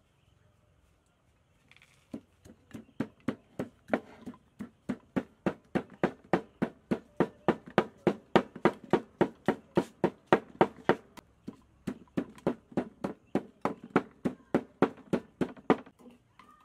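Wooden pestle pounding in a clay mortar, a steady run of knocks a little over three a second that starts about two seconds in and stops near the end, crushing a red chili mixture.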